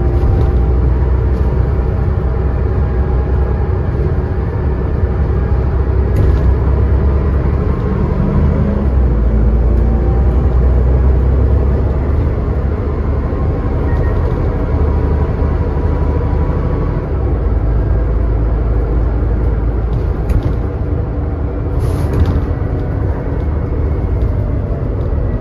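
Scania N94UD double-decker bus driving, with a steady, heavy diesel rumble. The whine of its ZF Ecomat 5-speed automatic gearbox rises and falls in pitch, and a few short knocks come from the bodywork or fittings.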